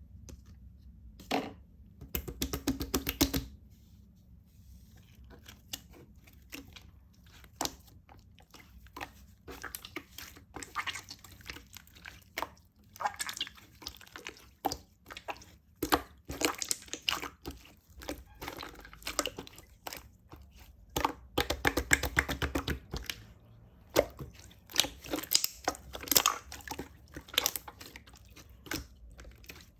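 Slime being pressed and squished by hand, making crackly, wet clicking sounds in irregular bursts, sparse early on and busier from about nine seconds in.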